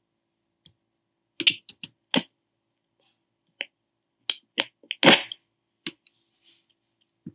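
Irregular sharp clicks and taps, about a dozen, some in quick runs of three or four, with silence between them.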